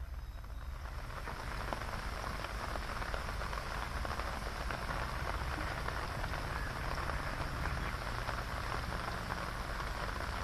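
Steady hiss of water with a fine crackle, building up over the first second and then holding, over a low rumble.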